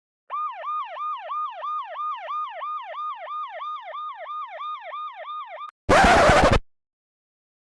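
Electronic siren in a fast yelp pattern, its pitch rising and falling about four times a second for some five seconds before cutting off abruptly. A short, loud burst of noise, like a crash or blast, follows about a second from the end.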